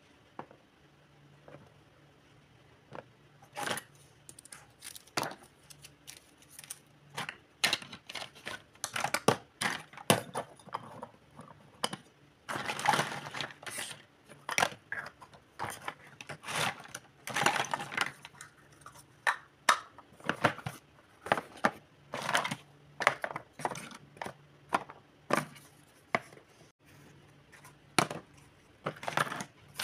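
Small plastic toy kitchen pieces clattering and knocking together as they are picked up, moved and set down by hand: irregular clicks and taps, with longer rattling stretches near the middle.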